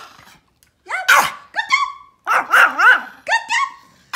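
Pomeranian barking on the "speak" command: a quick run of about five short, sharp barks, starting about a second in.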